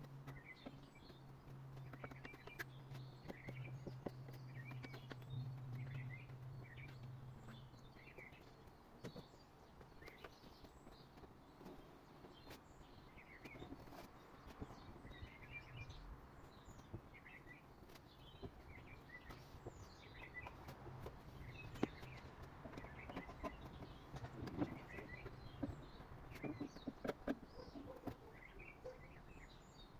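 Faint small birds chirping on and off, with a low steady hum for the first several seconds that then fades, and scattered light clicks.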